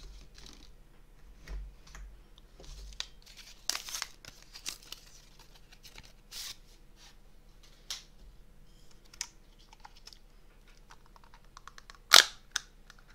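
Paper and plastic packaging being handled and torn as disposable chopsticks are unwrapped: scattered small rustles, crinkles and clicks, with one much louder sharp tearing crackle near the end.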